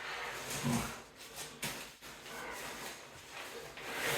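Rustling and shuffling of camping gear and stuff sacks being handled and pushed into a backpack, with a short low grunt just under a second in.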